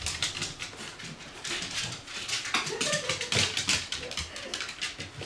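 Shiba inu's claws clicking and scrabbling on a wooden floor as it drags and shakes a bath towel, with the cloth rustling and a few brief dog vocal sounds about halfway through.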